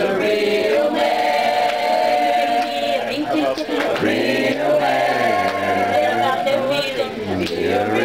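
A group of people singing together in a casual sing-along, several voices holding long notes.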